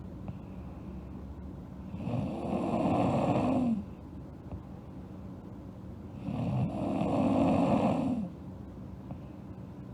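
A sleeping girl snoring: two long snores about four seconds apart, with quieter breathing between them.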